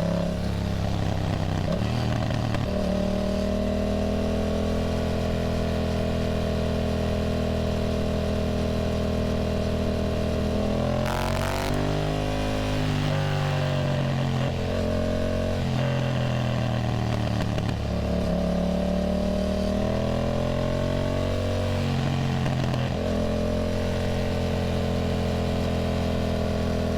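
Yamaha motorcycle engine running under way, heard from the bike. The engine note holds steady for stretches and dips and climbs again several times as the throttle and gears change, with a brief sharp noise about eleven seconds in.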